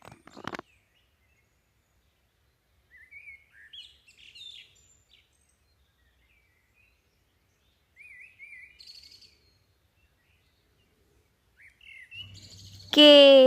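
Birds chirping faintly in two short spells of quick, high chirps, about three and eight seconds in, with near silence between.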